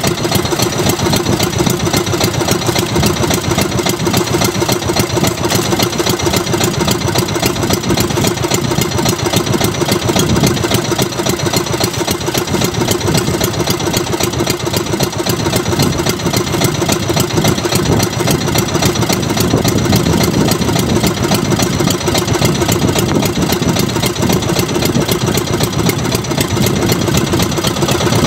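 Small engine of a motorized outrigger boat idling steadily, a fast, even putter.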